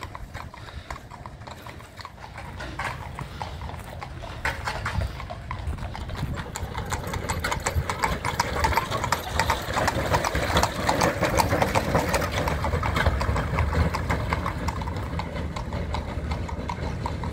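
Horses' hooves clip-clopping on a paved road as horse-drawn carriages go by. The steady run of hoof strikes grows louder to a peak about halfway through as a two-horse wagon passes, then fades as it moves off.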